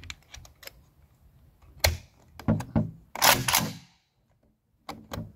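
Type 81 rifle's metal receiver top cover being fitted back on: a series of metal clicks and clacks, with a sharp clack a little under two seconds in and a longer rattling clatter just after three seconds.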